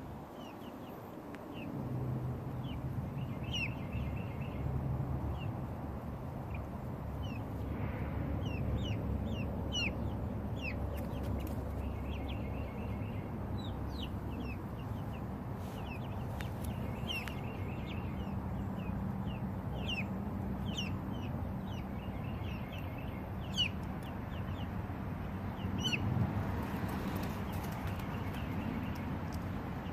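Young chickens peeping: short, high chirps scattered through, about one every second, over a steady low background noise.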